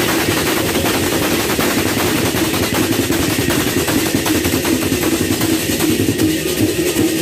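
Sasak processional gamelan music with rapid, dense drumming on two-headed gendang drums, the beats running on without a break.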